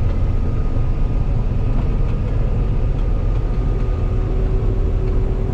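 Combine harvester running steadily while cutting soybeans: a steady low engine drone with a faint whine over it, and a second faint steady tone coming in about four seconds in.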